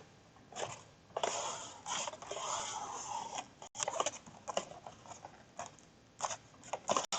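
Paper craft pieces being handled on a work surface: a run of short, irregular rustles and scrapes of paper.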